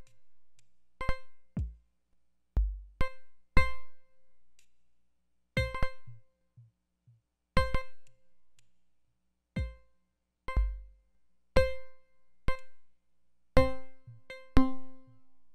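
Sparse electronic music: short, bell-like synth notes struck one at a time on the same pitch at uneven intervals, some with a deep drum hit beneath. Near the end a lower note joins in.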